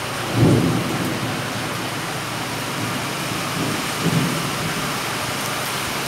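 Heavy rain falling steadily, a dense even hiss, with two brief low rumbles, the louder about half a second in and another around four seconds.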